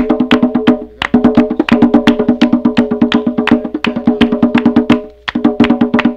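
Afro-Brazilian percussion music: a fast, even run of sharp hand claps and strikes over a steady ringing drum tone. It breaks off briefly about a second in and again near the end.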